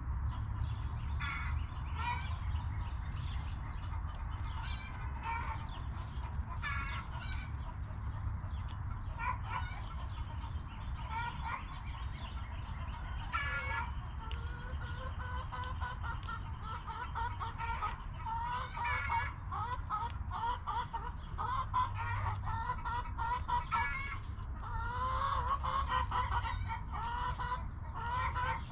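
Backyard hens clucking, with many short calls through the whole stretch that grow busier and more overlapping in the second half, over a steady low rumble.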